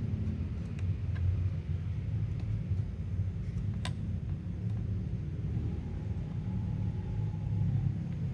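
Steady low rumble with a few faint small clicks and one sharper click about four seconds in, as an M.2 SATA SSD is handled and fitted into a laptop's M.2 slot.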